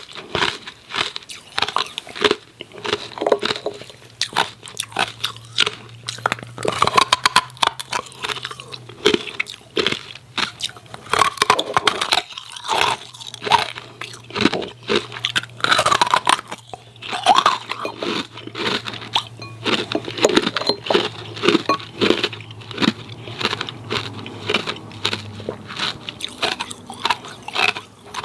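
Hard ice cubes crunched and chewed close to the microphone, a continuous run of sharp, crackling bites and chews.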